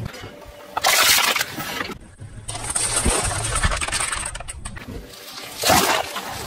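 A car tyre rolling over and crushing plastic objects, with two loud crunching bursts, about a second in and near the end. A car engine runs quietly in between.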